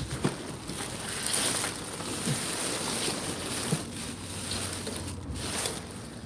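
Plastic wrap, bubble wrap and clear bags rustling and crinkling as hands dig through packaging waste in a dumpster.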